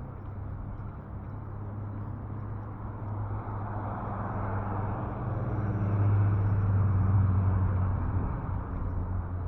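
A motor vehicle passing by on the road: a low engine hum with tyre noise that grows louder, peaks about two-thirds of the way through, then starts to fade.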